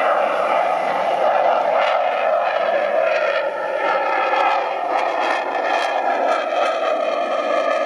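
Aircraft engine noise, loud and steady, with a faint whine of several held tones above it and scattered short crackles.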